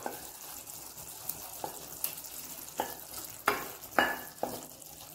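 Thick masala gravy sizzling faintly in a nonstick pan as roasted paneer cubes are tipped in, with about half a dozen light knocks spread through it.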